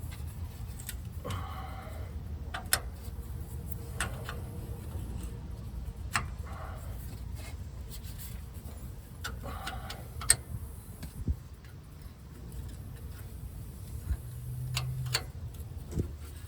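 Irregular metal clicks and taps of a wrench working a rusted brake-line nut, the sharpest about two-thirds through, over a steady low rumble.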